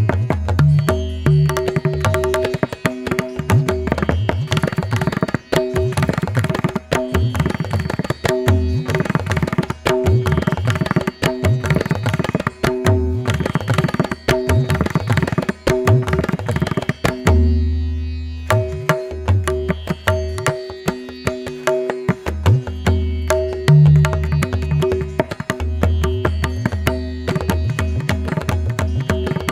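Background music with tabla-like hand drums and steady drone tones.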